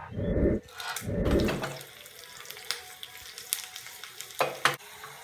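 Mustard seeds, garlic and dry red chillies frying in hot oil in a small tadka pan, a steady sizzle with scattered sharp pops and crackles as the seeds splutter, two close together near the end. Two heavy low rumbling thumps come in the first two seconds.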